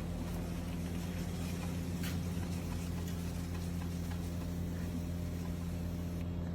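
A steady, unchanging low mechanical hum, like a motor or fan running, with a few faint clicks.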